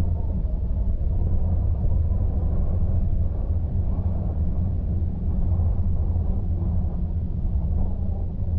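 Car driving at steady speed: a continuous low rumble of engine and road noise.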